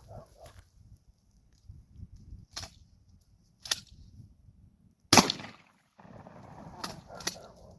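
Shotgun firing birdshot: one loud shot about five seconds in with a short echo, and several fainter sharp cracks before and after it.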